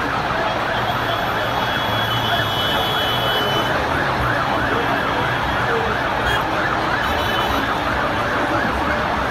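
Fire engine siren sounding a rapid warble, rising and falling several times a second, over the steady noise of a packed street.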